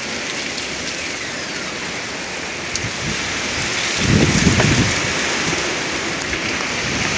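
Strong gusty wind blowing steadily, with a heavier gust buffeting the microphone with a low rumble about four seconds in.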